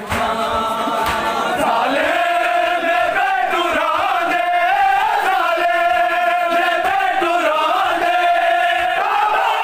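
Many men's voices chanting a noha (Shia mourning lament) together in a slow, held melody, with the slaps of matam, hands beating on bare chests, keeping time beneath it.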